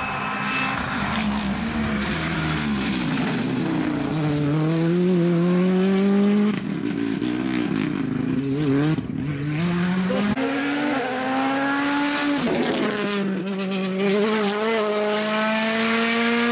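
Rally cars driven flat out on a stage. The engines rev hard, their pitch climbing through each gear and dropping sharply at gear changes and lift-offs several times, over a rough noise of tyres on the road.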